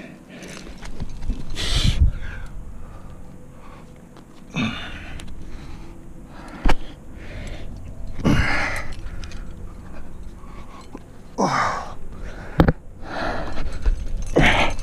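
A rock climber breathing hard with effort while hanging on a strenuous crack: about five forceful exhalations a few seconds apart, some voiced and falling in pitch. Two sharp clicks are heard between them.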